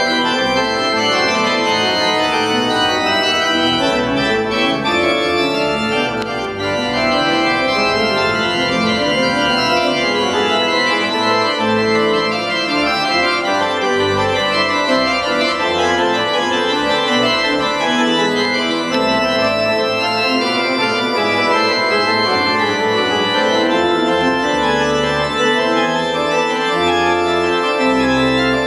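Large pipe organ played loud with many stops drawn, a dense sustained sound of many ranks together, with low pedal bass notes moving underneath.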